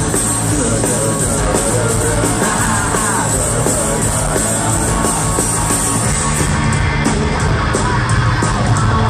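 Live rock band playing loud: electric guitars, drums and singing, picked up from the crowd. About six and a half seconds in the sound gets heavier in the low end, with regular drum hits.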